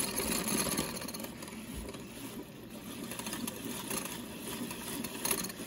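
Chilled coconut cream being whipped by hand in a bowl toward soft peaks: fast, steady whisking strokes.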